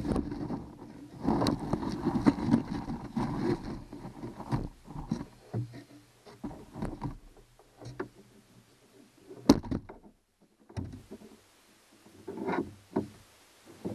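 Irregular rustling, scraping and sharp clicks and knocks of hands and a small tool working on bolts under a fiberglass boat deck, busiest in the first few seconds, with one loud click about halfway through.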